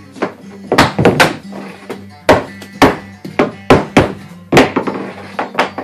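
Mallet striking PVC pipe: about a dozen sharp knocks at uneven intervals, some in quick pairs.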